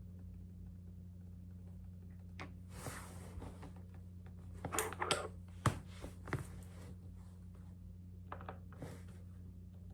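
Objects being handled over a steady low hum: a string of short clicks, knocks and rustles, loudest with a sharp knock about halfway through.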